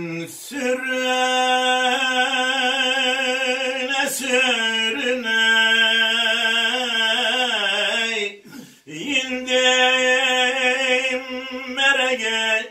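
A man singing an unaccompanied Turkish uzun hava, holding long notes with wavering ornaments. It comes in two long phrases with a short break after about eight seconds.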